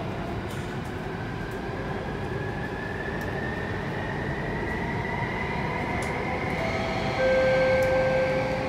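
Alstom C830 Circle Line train's traction motors whining, the pitch slowly rising as the train gathers speed, over a steady rumble from the wheels and track, heard from inside the car. Near the end a steady higher tone comes in and the sound grows louder.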